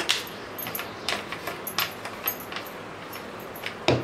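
Scattered light plastic clicks and taps as a plastic bottle and the hand chopper's lid are handled on a kitchen counter, with one louder knock near the end.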